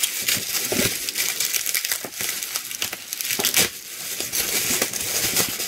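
Packaging crinkling and rustling as items are handled in an opened subscription box, with many small clicks and knocks throughout.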